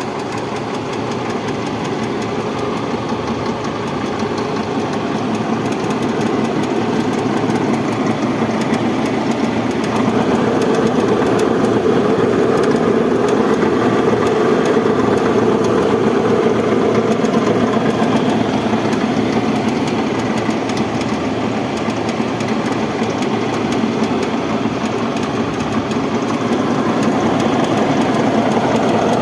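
Toyota Hiace minibus with the engine running and the electric radiator cooling fan making an abnormal noise, a sign that the fan motor is failing and needs replacing. The noise grows louder over the first ten seconds or so, then holds steady.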